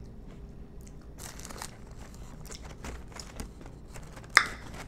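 Close-up eating and handling sounds: crisp crackles and rustles from the paper liner of a styrofoam takeout box being handled, mixed with crunching on crispy fried chicken wings. There is one sharp, loud crackle a little before the end.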